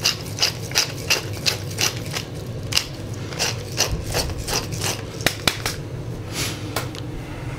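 Hand pepper mill twisted over a bowl, grinding pepper in short rasping strokes about three a second, which stop after about four seconds; a couple of sharp clicks follow.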